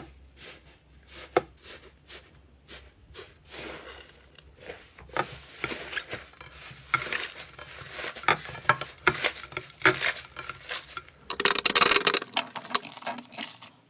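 Slime being worked by hand: sharp sticky clicks and pops, at first about two a second, then denser, with a loud burst of crackling near the end that cuts off suddenly.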